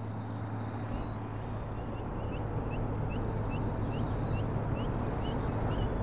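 Black guillemots calling: three thin, high whistles about a second long, each falling slightly, over a run of short rising peeps about two a second. A steady low hum sits underneath.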